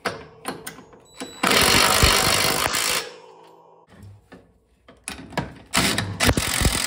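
Cordless impact driver hammering a socket onto bolts on a snow plow's hydraulic angling cylinder mounts, in two runs of about a second and a half each: one starting about a second and a half in, the other near the end. A few light clicks come before the first run.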